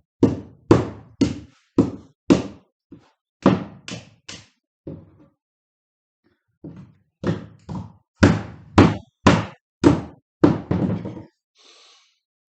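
Repeated hard thunks, about two a second, as the hard plastic case of a Kobalt 80-volt Max battery pack is struck to force it open. The blows come in two runs with a short lull between them.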